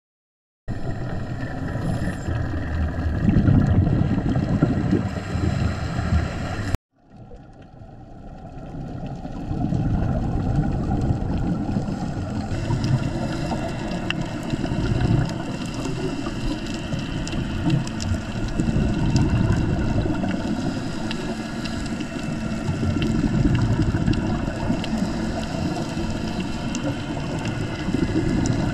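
A motorboat running over open water, its engine and wake giving a loud, steady rumbling noise that cuts off suddenly after about six seconds. Then comes the muffled underwater wash heard through a diving camera, a steady rumble with divers' exhaled regulator bubbles and faint scattered clicks.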